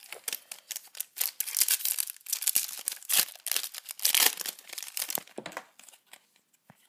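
Foil Yu-Gi-Oh! booster pack wrapper being torn open and crinkled in the hands: a dense run of crackling and crinkling from about a second in, easing off after about five seconds.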